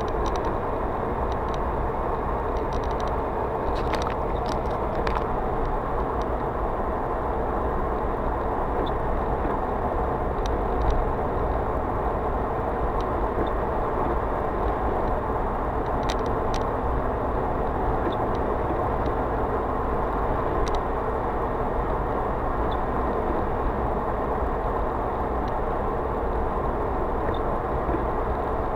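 Steady road and engine noise inside a moving car's cabin as it drives along at a steady speed, with a few light ticks here and there.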